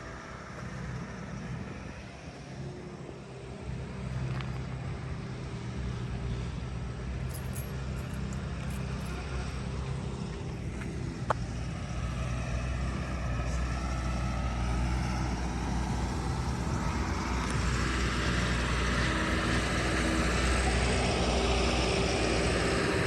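A motor engine running steadily and growing gradually louder, with a single sharp click about eleven seconds in.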